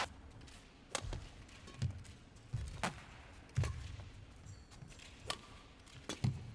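Badminton rally: rackets striking the shuttlecock in a series of sharp cracks roughly a second apart, with the players' heavy footfalls thudding on the court between shots.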